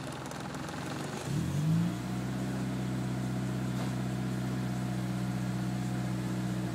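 Mitsubishi 4G93T turbocharged four-cylinder engine rising in revs about a second in, then held at a steady higher speed until near the end, when it drops back.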